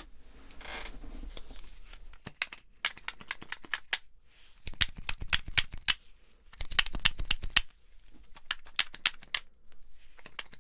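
Close-miked clicking and crackling from objects handled right at the microphone, coming in several bursts of rapid clicks with short pauses between them. These are the test sounds of a roleplayed hearing exam.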